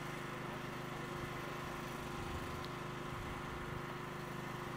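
A steady engine hum made of several held tones, running without change.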